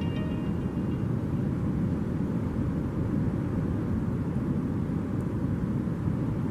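Steady low rumbling noise, even and unbroken, with most of its energy in the low range.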